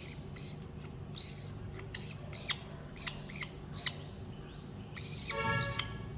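A young bird chick chirping repeatedly in short, sharp, high calls about once a second, with a longer buzzy call about five seconds in.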